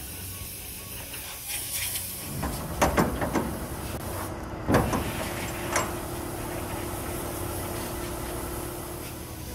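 Steel shipping-container doors being shut and latched. A cluster of metal clanks comes about three seconds in and a sharp bang near five seconds, over a low steady rumble.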